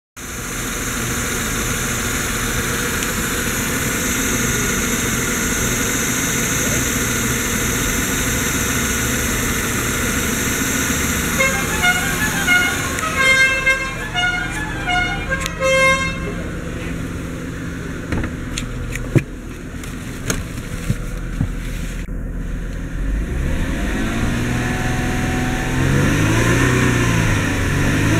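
Mercedes CLK240's 2.6-litre V6 running, filmed at the open engine bay. A run of short pitched toots comes between about 11 and 16 seconds in. Near the end the engine is revved up and down several times, to about 3000 rpm.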